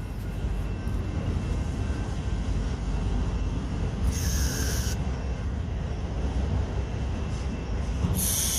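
Two short bursts of pressurized spray hissing, each about a second long, a few seconds apart, during cleaning of a mower carburetor, over a steady low rumble.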